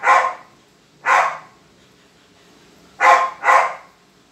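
Dog barking four times: one bark at the start, one about a second later, then two in quick succession near the end.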